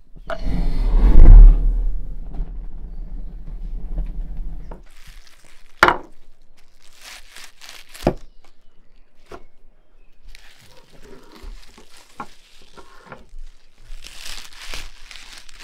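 Split logs scraping and knocking as they are pushed into a brick oven, with a loud low rumble in the first few seconds. Then a chef's knife slicing through green onion stalks on a wooden table: two sharp knocks of the blade, followed by crisp crunching cuts.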